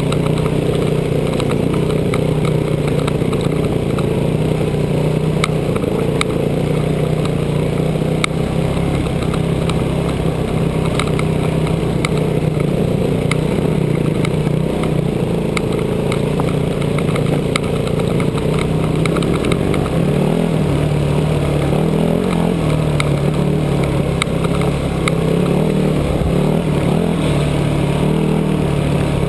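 2006 Yamaha WR250F dirt bike's single-cylinder four-stroke engine running under way at a fairly even pitch. The pitch wavers a little in the last third, with scattered sharp clicks throughout.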